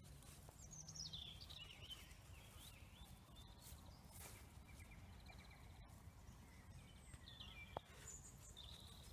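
Near silence outdoors with faint birdsong: a warbling phrase falling in pitch about half a second in, a few short trills, and another brief phrase near the end, over a low steady background rumble.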